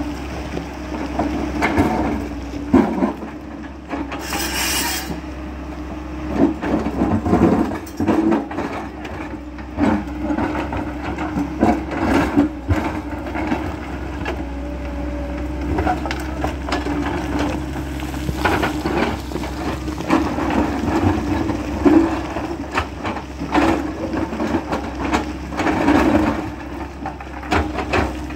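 Tracked hydraulic excavator working: its diesel engine runs steadily while the bucket scrapes and knocks against boulders and loose stone, with irregular clattering of rock and a brief hiss about four seconds in.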